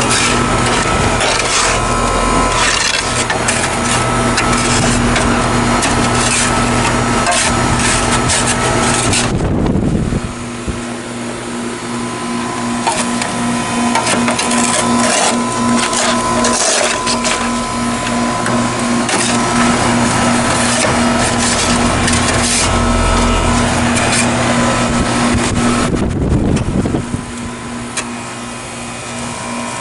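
Snow and ice being scraped and crunched away in quick repeated strokes, over the steady hum of a Goodman GSH13 heat pump's outdoor unit running in the cold. The scraping stops briefly about ten seconds in and again near the end, leaving the unit's hum.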